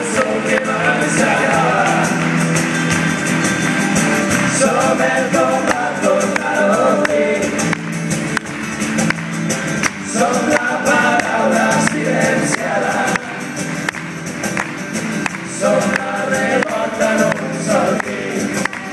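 Live acoustic band playing an instrumental passage: acoustic guitars keep a steady backing while a melody phrase comes back about four times.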